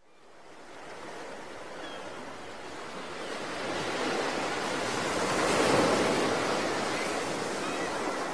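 Ocean surf rushing, fading in from silence and swelling to its loudest a little past halfway before easing slightly.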